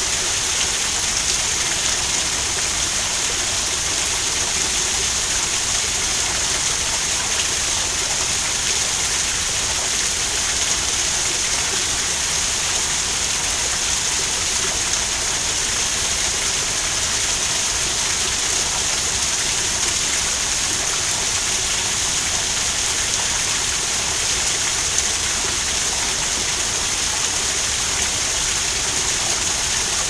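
Garden waterfall: a steady rush of falling water, even and unbroken.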